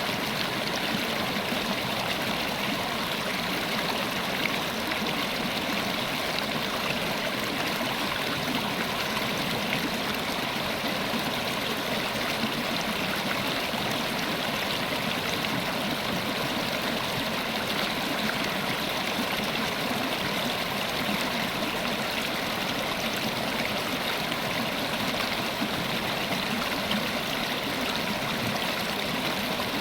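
River water flowing steadily over a stream bed, a continuous rushing and trickling with no breaks.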